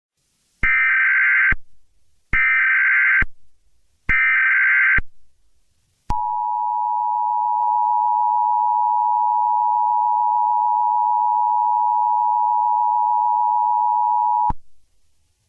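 Emergency Alert System SAME header: three short bursts of warbling data tones, each about a second long, followed by the two-tone EAS attention signal held steady for about eight seconds before it cuts off sharply.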